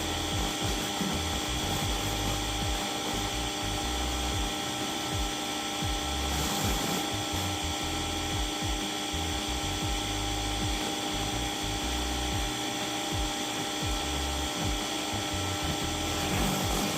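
An electric pressure washer runs with a steady motor whine while its rotating surface cleaner sprays water onto concrete, with a hiss and uneven low rumbling underneath.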